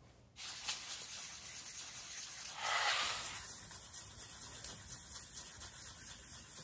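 Sandpaper rubbed by hand over the stainless steel impeller blade of a Yamaha Waverunner III jet pump, polishing it smooth: a steady scratchy rasp that starts after a brief silence and is briefly louder about three seconds in.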